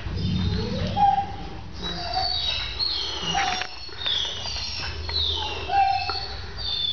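Puppies whining and whimpering: a string of high, falling cries, roughly one a second.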